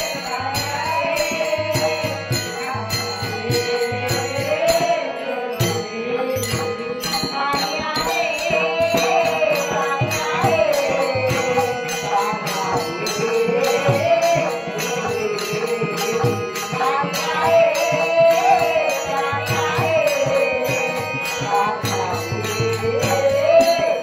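Marathi gaulan bhajan music: a gliding melody over a steady beat of a low hand drum and jingling small cymbals.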